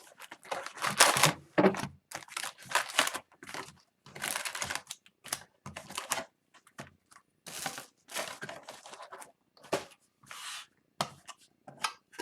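Plastic wrapping on a sealed box and packs of hockey trading cards being torn and crinkled open: irregular rips, crackles and clicks in quick succession.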